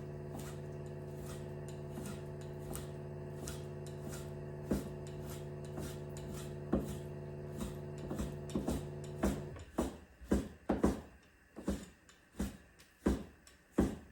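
Knife chopping pork on a cutting board: scattered knocks at first, then louder, quicker strokes about twice a second in the last few seconds. A steady low hum underneath stops about nine seconds in.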